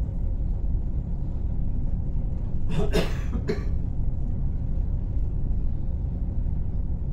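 Steady low rumble of a container ship's engine and machinery heard inside the wheelhouse, with a person coughing briefly about three seconds in.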